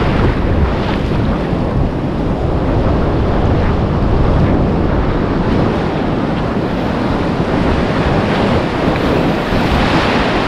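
Ocean surf breaking and washing up the shore in a steady rush, swelling louder near the end as a wave comes in. Strong wind buffets the microphone, adding a heavy, uneven rumble.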